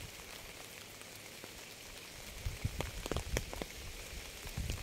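Rain falling steadily as an even hiss, with a cluster of louder individual drops striking close by starting about halfway through and a few more near the end.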